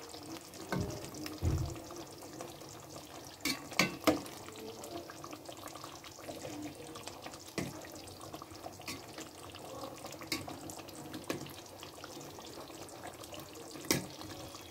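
Fish curry simmering in a metal pot as a metal spoon stirs it, with a few sharp clinks of the spoon against the pot.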